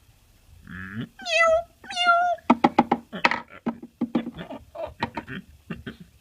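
Two drawn-out, wavering cat meows about a second in, followed by a quick run of short clipped vocal noises.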